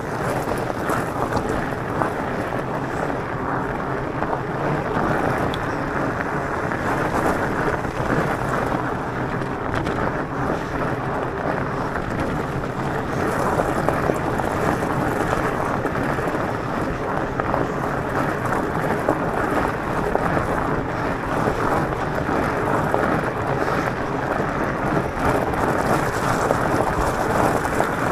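Steady rushing noise of riding an electric mountain bike: wind buffeting the camera microphone over tyres rolling on a gravel road, at an even level throughout.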